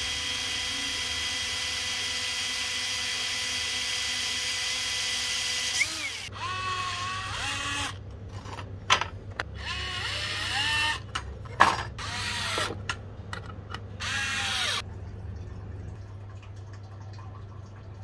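Cordless drill running steadily as its bit bores through a plastic box, stopping about six seconds in. Then a small rotary tool runs in a string of short bursts, its pitch rising and falling, as it trims the plastic, until about fifteen seconds in.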